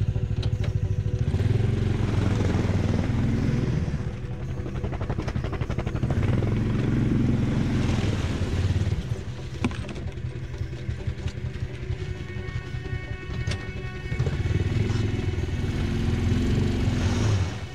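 Snowmobile engine revving in three long surges of throttle, dropping back to a lower run between them, as the machine, stuck in a bog's unfrozen slush and water, is driven to work it free.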